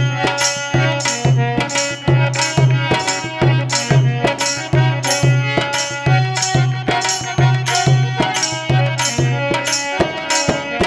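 Instrumental break of a Rajasthani Holi folk song. Deep drum strokes keep a steady beat about twice a second, with jingling cymbals on the beats and a melody instrument holding notes; the deep drum drops out near the end.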